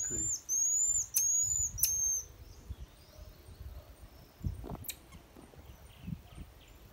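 Marmosets calling from the tree: a quick run of short, very high-pitched chirps over the first two seconds, then they fall quiet. A single sharp click comes just before the five-second mark.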